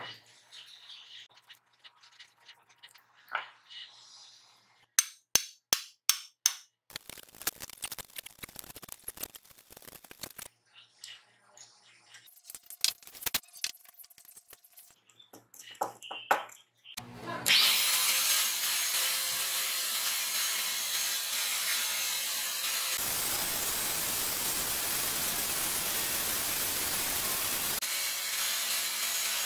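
A run of sharp clicks and handling noises as glued wooden discs are worked and clamped on a rod. Then, a little past halfway, an angle grinder fitted with a Drillpro belt-sander attachment starts and runs steadily and loudly. The wooden disc stack is held against the sanding belt, and for several seconds the noise turns coarser and fuller.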